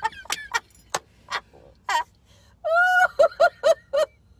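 A woman laughing hard in separate bursts, with one long high squeal about two and a half seconds in followed by a quick run of short laughs.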